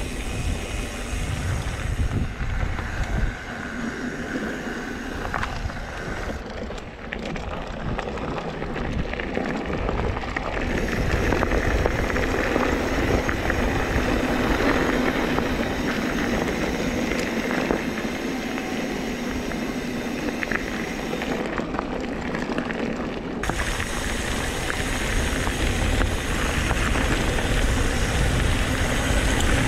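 Mountain bike riding down a loose gravel road: tyres crunching and rattling over stones, with wind rumbling on the microphone. It grows somewhat louder from about ten seconds in.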